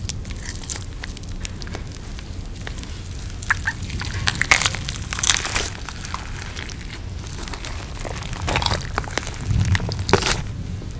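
Close-miked eating sounds: chewing and crunching with many small mouth clicks, and a few louder crunchy bites partway through and again near the end.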